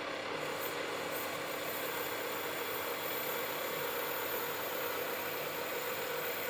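Metal lathe running steadily while a turning tool cuts a groove into a large acrylic cylinder, peeling off long stringy plastic chips; a steady hum.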